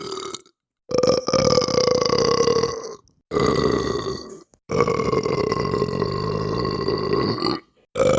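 A series of long, drawn-out belches, each holding a fairly steady pitch. There are three in a row, lasting roughly two, one and three seconds, with abrupt cuts of silence between them.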